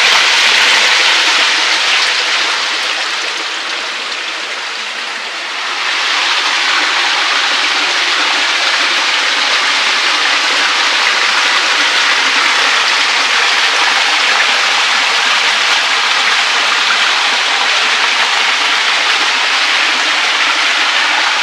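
Waterfall pouring straight into a rock pool: a steady, loud rush of falling water. It fades a little a few seconds in, then comes back fuller about six seconds in.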